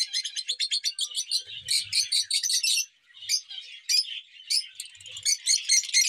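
A flock of lovebirds chattering: many rapid, high-pitched chirps overlapping, dipping briefly about halfway through.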